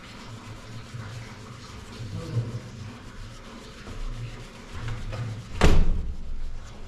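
Flour being sifted: a round wooden-rimmed sieve is shaken and rubbed over a metal pan, making soft irregular bumps and rustling. There is one loud knock with a short ring near the end.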